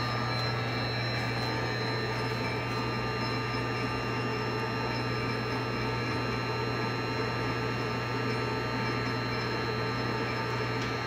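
Hardinge HLV-H-EM toolroom lathe running steadily with the threading feed engaged, the spindle and feed gearing turning as the carriage travels.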